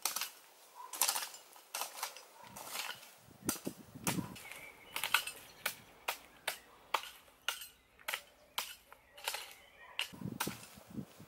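Hand hoe chopping into and scraping forest soil in repeated sharp strikes, irregular at roughly two a second.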